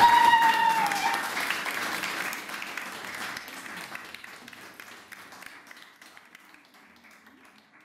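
Audience applause dying away, the clapping thinning out and fading steadily until only scattered claps remain near the end. In the first second a single high held note, dipping slightly in pitch, sounds over the clapping.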